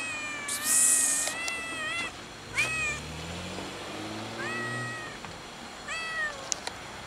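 A cat meowing repeatedly: one long meow, then several shorter ones. A short, loud burst of hiss comes about half a second in.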